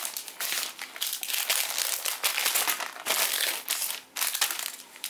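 Clear plastic bags crinkling and rustling in irregular bursts as plastic model-kit runners inside them are handled and lifted out.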